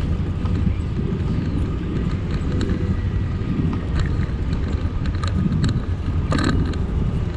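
Steady low noise of a bicycle ride on an asphalt path, with wind buffeting the microphone and tyre noise, and scattered light clicks and rattles from the bike. One sharper clatter comes about six seconds in.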